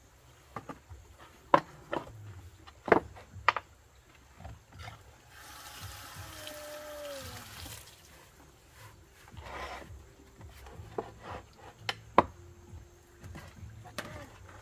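Several sharp knocks, and in the middle a rush of water lasting about two and a half seconds, with a short falling squeak over it.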